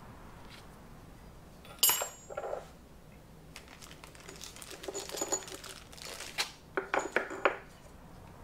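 Machined metal parts of a valve spring compressor tool and small bolts clinking and clattering as they are handled and set down. There is a sharp ringing metallic clink about two seconds in, then scattered light clicks, and a quick run of taps near the end.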